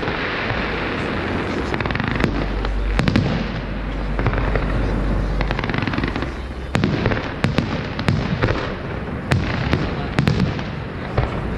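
Fireworks display: aerial shells bursting overhead in a string of sharp bangs and crackles, thickest in the second half.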